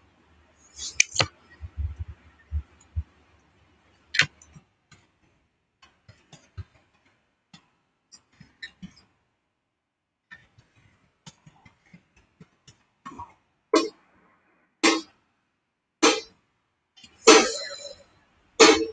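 Short, sharp sounds a person makes with the mouth or throat. A few come in a cluster about a second in, faint clicks are scattered through the middle, and five stronger ones follow about a second apart near the end.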